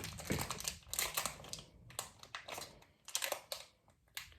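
Plastic packaging crinkling and clicking in irregular bursts as small toy figures are worked out of it, busier in the first half and sparser near the end.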